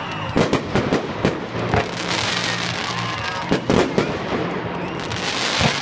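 Aerial fireworks shells bursting in a rapid, uneven string of sharp bangs, about a dozen over the few seconds, bunched near the start and again in the middle and near the end.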